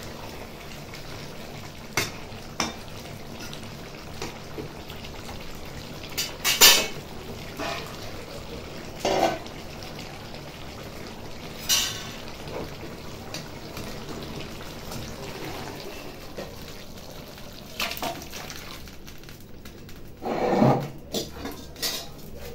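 Metal spoon knocking and scraping against a metal kadai and a steel serving bowl, in scattered clinks, the loudest about six and a half seconds in and a longer scrape near the end, over a steady low hiss.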